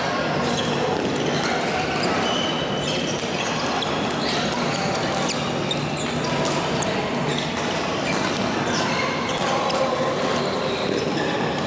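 Badminton doubles play in a large sports hall with many courts in use: racket hits on shuttlecocks and shoe squeaks on the court floor, scattered through a steady din of play and voices echoing around the hall.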